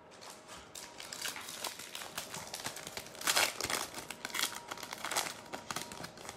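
Crinkling of a trading-card pack wrapper being handled and torn open: a string of small crackles with a few louder bursts, the biggest about three seconds in.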